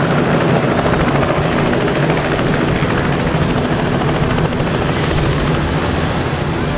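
Light helicopter touching down and sitting on its skids with the main rotor still turning, a steady rapid rotor chop over engine noise that eases slightly towards the end.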